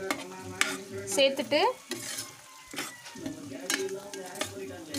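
Metal ladle stirring thick, oily tomato pickle in a metal pot on the stove, with the oil sizzling and several sharp scrapes of the ladle against the pot.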